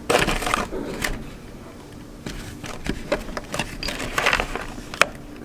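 Handling and rummaging through tools and a bit set's packaging to get out a T30 Torx bit: scattered rattles and rustling with a couple of sharp clicks.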